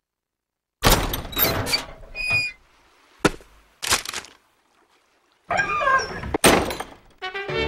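Several separate loud thuds and knocks, one with a brief ringing tone, between short silences. Brass-led orchestral theme music starts near the end.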